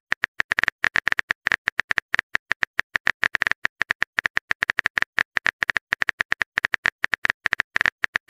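Typing sound effect: rapid keyboard key clicks, about nine a second in uneven runs, as a message is typed out.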